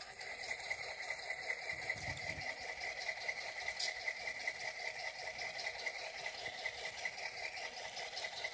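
Bachmann SD9 model locomotive's DCC sound decoder playing a diesel engine idle through its small speaker, a steady rhythmic chugging of about three beats a second.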